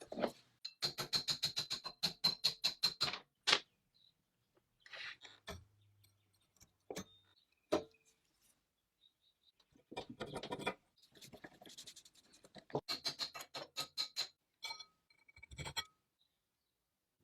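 Quick back-and-forth scraping strokes on a metal rifle part, about five a second in two runs, with a faint ringing to each stroke. Single clicks and knocks of metal parts being handled come in between.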